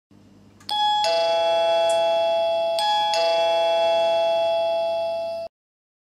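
SIMBR video doorbell's indoor monitor chiming a two-note ding-dong, high then low, twice in a row. Each note rings on until the sound cuts off abruptly near the end. A faint hum lies under the first second.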